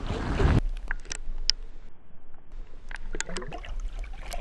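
A camera-mounted landing net is dipped into lake water. A brief rush of splashing comes as it goes in, then scattered clicks and knocks of water and handling around the submerged net.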